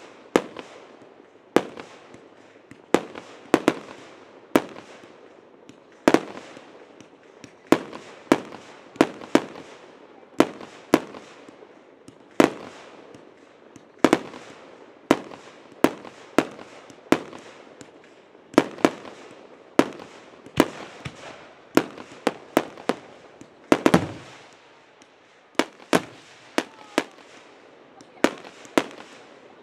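Aerial fireworks shells bursting in quick succession in a finale barrage: sharp bangs about one or two a second, each trailing off in an echo. A tight cluster of bangs comes about four-fifths of the way through.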